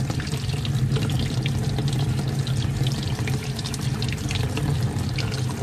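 Hot water running steadily from a kitchen faucet, splashing over a spinning-reel spool held in the stream and into the sink below.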